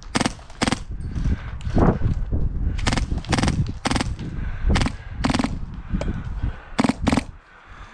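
Airsoft guns firing single shots, about ten sharp cracks at irregular intervals, some in quick pairs.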